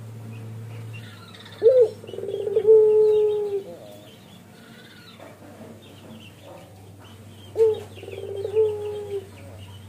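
Male ringneck dove of the long-voiced puter pelung strain giving two bowing coos, each a short sharp rising note followed by a long, even coo. Faint high chirps of small birds sound throughout.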